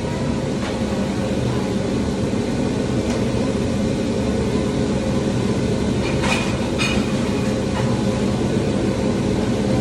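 Steady low mechanical rumble with a faint humming tone, broken by a few light clicks or knocks, two of them close together about six and seven seconds in.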